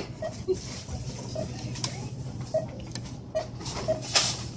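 Checkout-counter background noise: a steady low hum with light clicks and rustles of items being handled, and a louder rustle about four seconds in.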